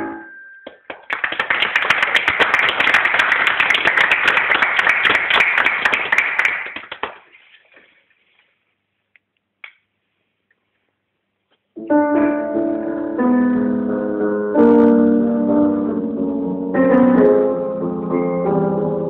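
Audience applause for about six seconds, fading away. A few seconds of near silence follow, then music on a keyboard instrument starts.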